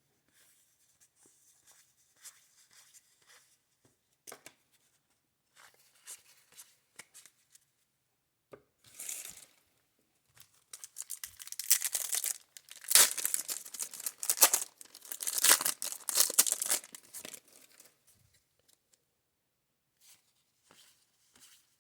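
Crinkly tearing and crumpling of a baseball card pack wrapper being ripped open, loudest and densest for several seconds in the middle, with light rustling of handled cards before it.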